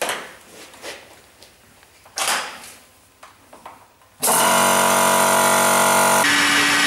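A few handling clicks and knocks, then about four seconds in an old portable Kaeser piston air compressor starts abruptly and runs loud and steady. Its pitch shifts slightly about six seconds in.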